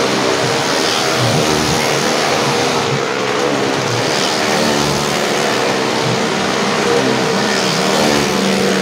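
A motorcycle engine runs hard and steady as it rides round the vertical wooden wall of a well-of-death show.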